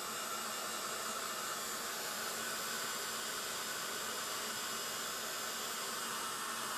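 Embossing heat gun running steadily, blowing hot air to melt embossing powder on a paper die-cut.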